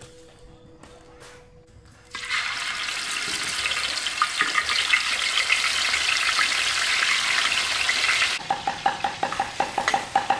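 Whole fish frying in hot oil in a wok, starting suddenly about two seconds in with a loud, steady sizzle and crackle. Near the end the sizzle thins and a metal spatula scrapes in the wok in quick repeated strokes, about three a second.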